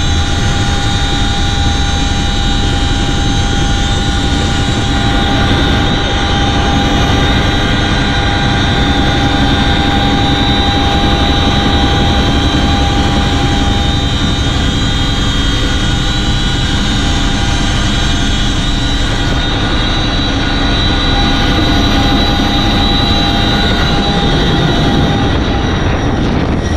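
Cabin noise inside a CH-47 Chinook helicopter in flight: a loud, steady drone from its twin turboshaft engines and tandem rotors, with several steady whining tones over it.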